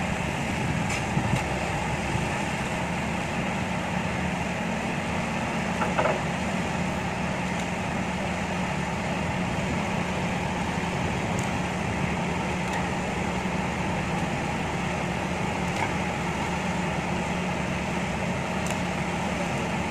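Heavy machinery engines running steadily with an even low hum, from a hydraulic excavator at work and the dump truck it is loading, with a few faint knocks.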